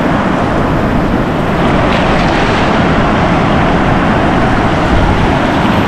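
Steady rush of shallow surf washing over the sand, with wind buffeting the microphone.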